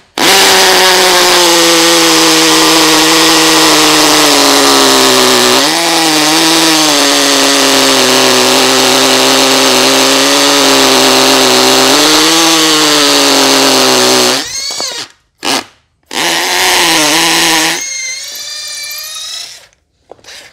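Hitachi 12-volt hammer drill boring into a lump of concrete with a masonry bit: a loud, steady motor whine whose pitch sags under load a couple of times. It stops about 14 seconds in, then comes a few short bursts and quieter running with a rising pitch near the end.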